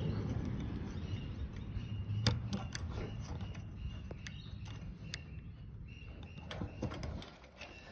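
Handling noise at close range: scattered light clicks and taps over a low rumble that fades away.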